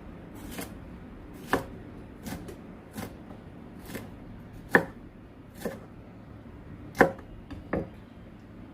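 Kitchen knife slicing bell pepper into thin strips on a chopping board, about one cut a second, each stroke ending in a sharp knock on the board. The knife is very dull.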